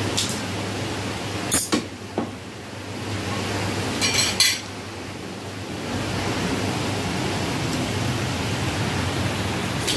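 Butcher's steel cleaver and knife being handled on a wooden chopping block, giving sharp metallic clinks: two about a second and a half in, a quick cluster around four seconds, and one more near the end, over a steady background hum.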